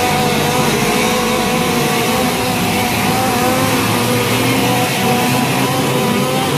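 Loud, steady engine-like drone with a few held tones that waver slightly, over a dense background din.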